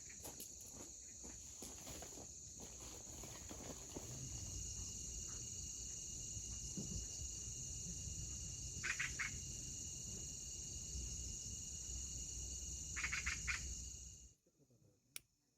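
Steady high-pitched chorus of insects, with two short rapid chirping bursts about nine and thirteen seconds in. It cuts off abruptly shortly before the end.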